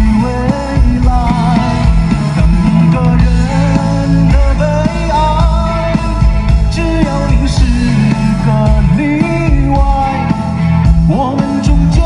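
A male singer singing a Mandarin pop song live, backed by a band with electric guitar, drums and keyboard, heard through the concert sound system with heavy bass.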